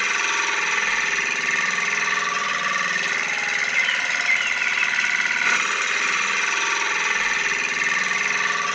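Small DC hobby motor of a DIY model tractor machine running steadily with a dense high whir.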